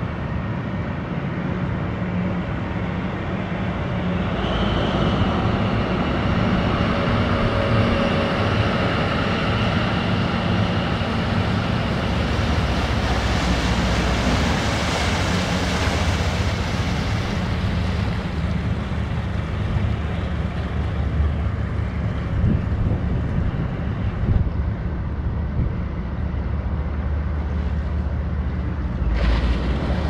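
Caterpillar diesel of a 2012 inland motor tanker passing close by: a steady low engine hum under a rush of water and wind noise that grows louder about halfway through.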